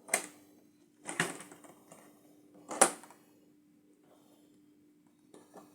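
Three sharp clicks and knocks of hard plastic LEGO pieces being handled as the LEGO fire engine is put into the fire station's garage, the loudest near the end of the three. A faint steady hum sits underneath.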